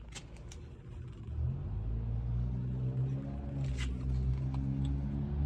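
Mini bike engine starting about a second in, its pitch rising as it catches, then running with a low, steady note that varies a little with the throttle. A few sharp clicks just before it starts.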